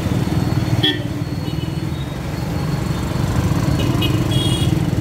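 Motorcycle engine running at low speed in slow city traffic: a steady low rumble, with scooters and a car moving close by.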